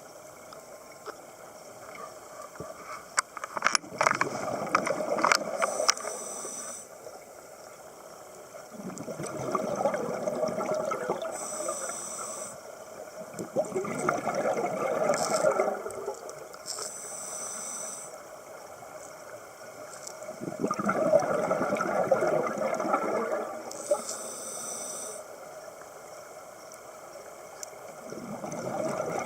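Scuba diver breathing through a regulator underwater: a short hiss on each inhale, then a burst of bubbling exhaust on the exhale, about every six seconds. A few sharp clicks about three to four seconds in.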